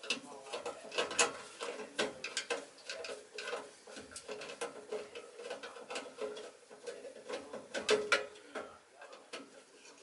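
Irregular small clicks, taps and rattles of hands and tools working inside a gas furnace's burner compartment while fitting a replacement igniter. There is a sharper knock about a second in and another near the end.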